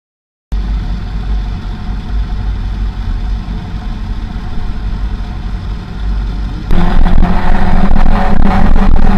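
1996 Honda CBR600F's inline-four engine running steadily at a low level, heard through an action camera's microphone. About two-thirds of the way in it turns much louder, and heavy wind noise on the unfiltered microphone joins the engine.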